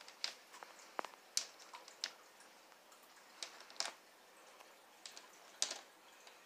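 About eight sharp, irregular clicks and taps as a pet turtle clambers over the aquarium's river-rock gravel: stones knocking together and claws and shell tapping the glass.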